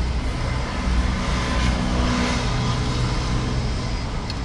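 Motor vehicle engine running steadily with a low hum, over a hiss of outdoor background noise.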